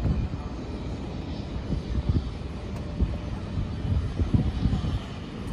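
Embraer E175 regional jet's turbofan engines heard from a distance as it lands, a low, uneven rumble. Gusty wind buffets the microphone.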